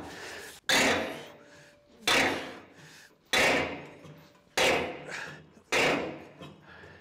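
Five loud metallic bangs, each fading over about a second, come from a screw puller as a long bar is heaved around to force out a seized bush hog wheel spindle. The puller's threads are stripping out under the load.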